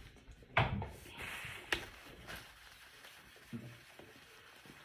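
A small dry-erase whiteboard handled and wiped clean with a tissue: a knock about half a second in, a short rubbing hiss, then a sharp tap, with a soft thud later.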